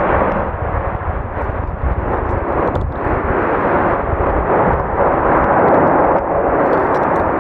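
Jet airliner engines at high power close by: a loud, steady roar with a deep rumble underneath.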